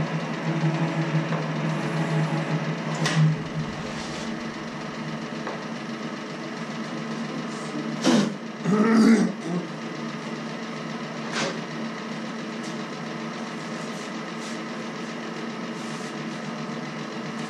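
A roughly 100-year-old metal shaper running with a steady machine hum that drops in level about three seconds in and carries on quieter. A couple of sharp knocks follow, and a brief louder clatter of handling close by comes near the middle.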